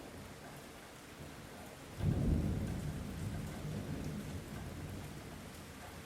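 Light steady rain, with a rumble of thunder that breaks in suddenly about two seconds in and rolls away slowly.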